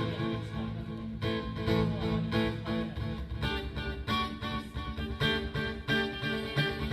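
Guitar strumming chords in a steady rhythm during a band sound check.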